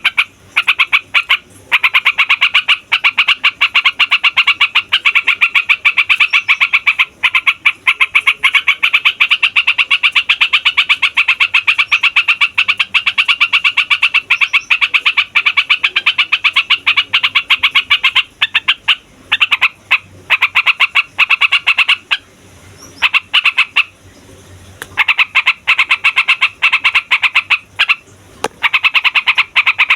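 Yellow-vented bulbul (trucukan) singing a long, rolling song of very fast repeated notes, with short pauses about two-thirds of the way through.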